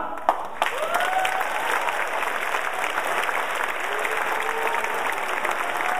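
Audience applause breaking out just as the choir's last sung chord stops, with a few rising-and-falling whoops from the crowd over the clapping.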